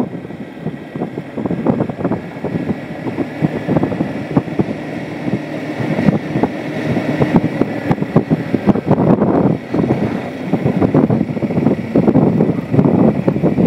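Motorcycle riding at about 33 km/h over a cobblestone-and-cement road: wind buffets the microphone over the engine's steady running, with dense knocks and rattles from the bumpy surface.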